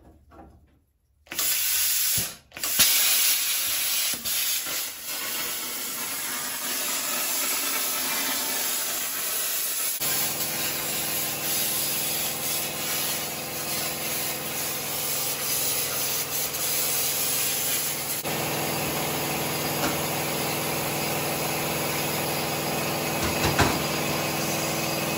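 Hand-held plasma cutter firing its arc about a second in, then a steady loud hiss of arc and compressed air as it cuts a circle through steel plate. A steady hum joins about ten seconds in, and there are a few knocks near the end.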